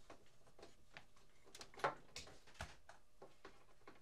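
Faint clicks and knocks of handling as an ATX computer power supply's mains cord is plugged in, the sharpest knock about two seconds in.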